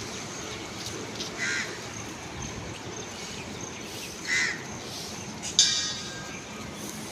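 A crow cawing: two single short caws about three seconds apart, over steady outdoor background noise. A brief, sharp, high-pitched sound a little past the middle is the loudest thing.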